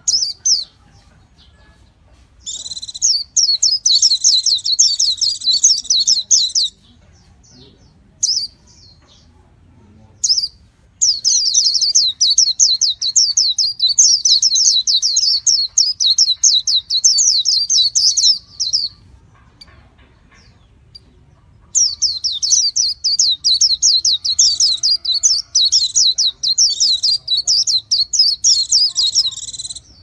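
A white-eye singing: three long bouts of rapid, high warbling, the first about four seconds long and the next two about eight seconds each, with a few short single calls between them.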